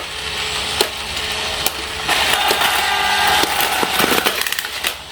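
Plarail toy train and crossing set running: sharp plastic clicks come about once every 0.8 s. From about two seconds in, a louder crackling, hissing sound with faint steady tones lasts for around two seconds.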